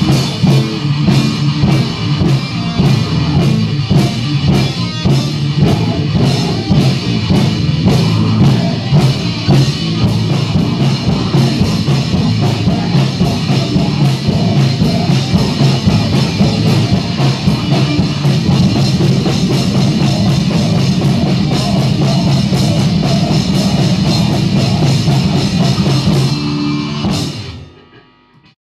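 Heavy metal band playing live: distorted electric guitar, bass guitar and drum kit with a fast, even drumbeat. The music fades out quickly near the end.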